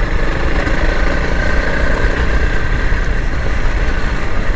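2021 Honda CRF300L Rally's single-cylinder engine running steadily while the bike is ridden on a dirt road, with a dense low rumble underneath.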